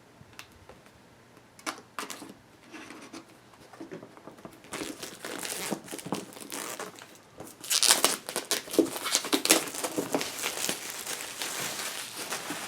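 Plastic shrink wrap being cut and pulled off a product box, crinkling and tearing. A few small clicks and rustles come first; the crinkling becomes steady about five seconds in and is loudest around eight seconds.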